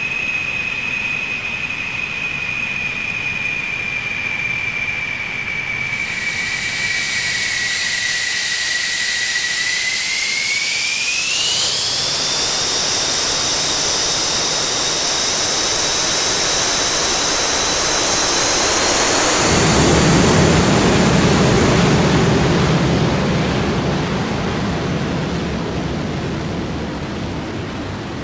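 Jet engine spooling up: a steady high turbine whine that dips slightly, then climbs sharply in pitch about ten seconds in. About twenty seconds in, a deep roar joins and peaks as the loudest part, then eases off near the end.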